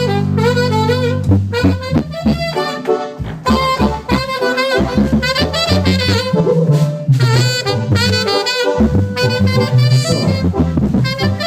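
Duranguense band music playing live: an instrumental interlude with saxophones and brass carrying a wavering melody over a steady bass line and drums.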